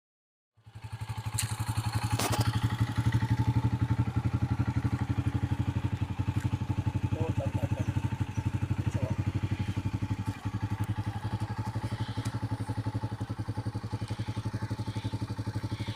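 An engine starting to be heard about half a second in and then running steadily at an even speed, with a fast, regular pulse and a low hum.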